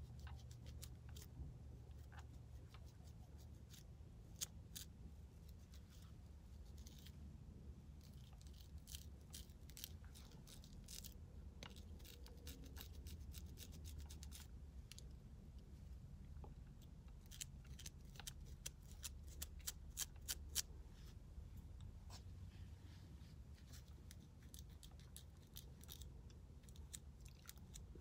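Fine-tooth comb of an edge brush scraping dandruff flakes off the scalp between braids: faint, quick, scratchy clicks in irregular runs, busiest a third of the way in and again around two-thirds through, over a low steady hum.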